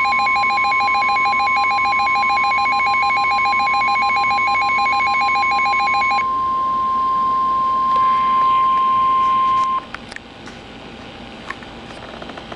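NOAA Weather Radio warning alarm tone: a loud, steady, single high beep for about ten seconds that cuts off suddenly. For the first six seconds a second, rapidly pulsing alert tone sounds over it. After that come faint static and a few clicks.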